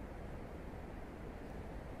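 Wind blowing steadily, a low, even rush without gusts.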